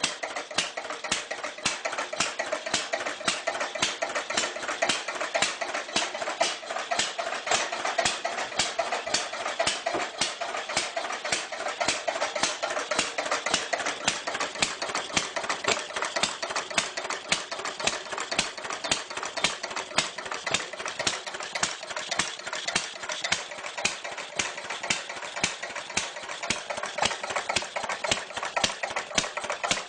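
Clunky old engine running steadily, a rapid, even clatter of knocks.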